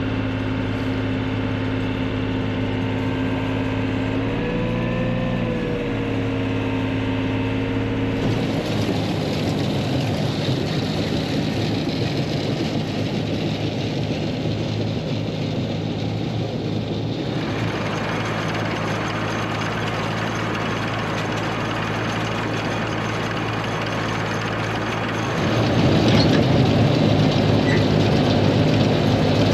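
Tractor engine running while pulling a round baler in the hay. The engine note dips and rises briefly about four seconds in; from about eight seconds on the sound turns rougher and noisier, and it gets louder about 25 seconds in.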